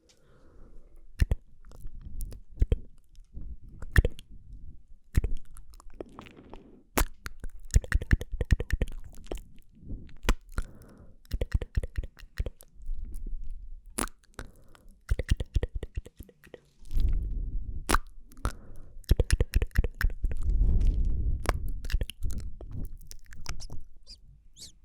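Close-miked ASMR mouth sounds: quick, irregular wet clicks and smacks of lips and tongue, sometimes in fast runs. A low rumble comes in twice in the second half.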